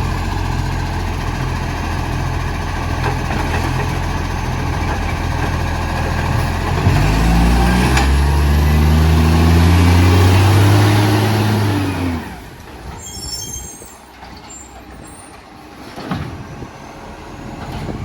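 Diesel garbage truck engine with an exhaust leak, running steadily, then revving up and climbing in pitch from about seven seconds in as the truck pulls away. It drops off sharply after about twelve seconds.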